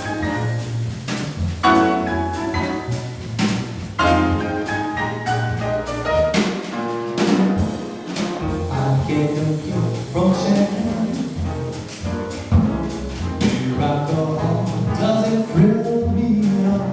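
Jazz band playing an instrumental introduction, with a stepping bass line under melodic instruments and drum or cymbal strokes.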